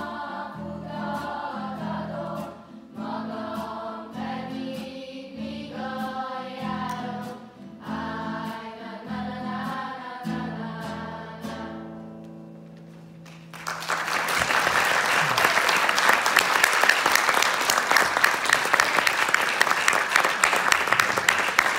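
A song sung by a group of voices over a sustained low note, ending on a held chord that fades out a little past halfway. Then loud audience applause breaks out and continues.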